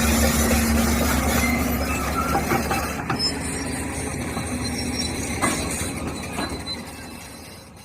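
Heavy machinery at work: a low engine rumble with scattered metallic clanks and squeaks. The rumble drops away about three seconds in, and the sound fades out near the end.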